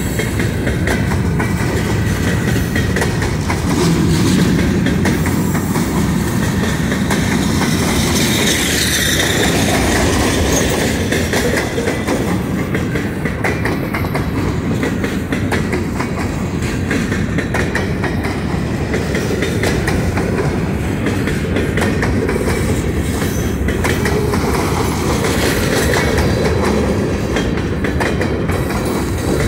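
A train's cars rolling steadily past, the wheels clicking rapidly over the rail joints.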